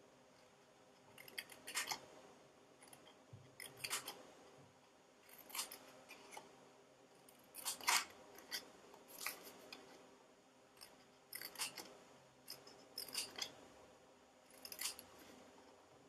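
Small scissors snipping slits into cardstock, in short clusters of a few snips every second or two.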